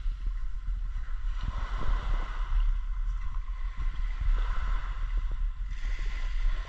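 Small waves washing onto a pebbly shore, swelling and falling back every couple of seconds, over a low rumble of wind on the microphone.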